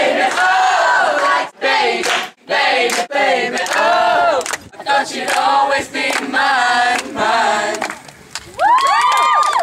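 A group of teenagers singing and shouting together, loud and broken into short snatches by abrupt cuts. Near the end comes one drawn-out group cry that rises and falls in pitch.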